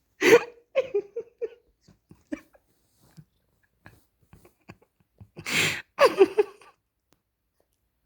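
Maine Coon cat sneezing twice, once just after the start and again about five and a half seconds in, each sneeze followed by a few short, quieter snuffles.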